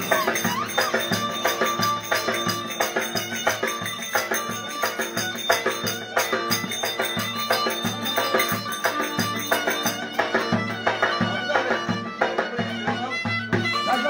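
Live Turkish folk dance music: a reedy wind instrument plays a held, droning melody over a steady drum beat.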